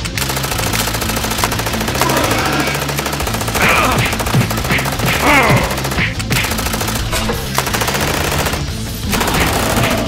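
Cartoon sound effect of rotary gatling guns (miniguns) firing in long rapid bursts, with short breaks about six seconds in and near nine seconds. A few falling pitched glides sound in the middle, over background music.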